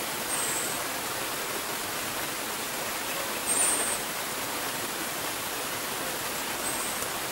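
A gurgling stream rushes steadily and loudly while an orange-headed thrush gives three short, very high, thin calls about three seconds apart. The middle call is the loudest.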